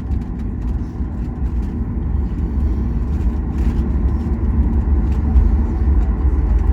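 Deep, steady cabin rumble of a Boeing 737 MAX 8 rolling on the runway just after landing, heard inside the rear economy cabin, swelling slightly toward the end.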